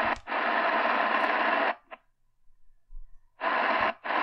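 Realistic DX-380 shortwave radio auto-scanning the shortwave band: its speaker gives bursts of hiss from static as it stops on each frequency and falls silent in between. There is one long burst of hiss, a silent gap of about a second and a half, then two short bursts near the end.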